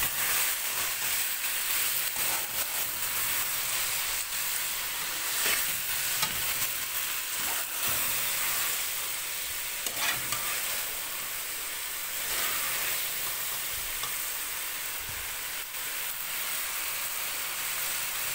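Chicken, capsicum, onion and tomato sizzling as they fry in a stainless-steel pot, with a spatula stirring and scraping through them and now and then knocking against the pot.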